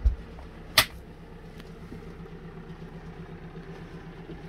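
The wooden galley fridge lid drops shut with a dull thump, and a sharp click follows just under a second in. Under it runs a steady low mechanical hum with a faint regular pulse.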